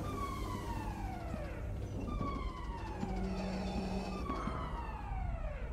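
Siren-like tone gliding down in pitch, three times about two seconds apart, over a low steady hum.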